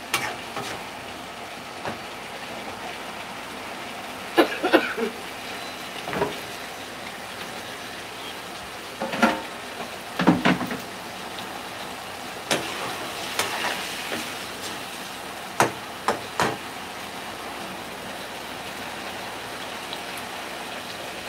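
Food sizzling steadily in a frying pan on a gas burner, with about ten scattered clinks and knocks of a spatula and other kitchen utensils against the pan and dishes.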